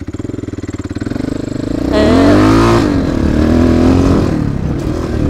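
Suzuki DR650's single-cylinder four-stroke engine running under way on a dirt trail, its revs rising about two seconds in and then easing back off.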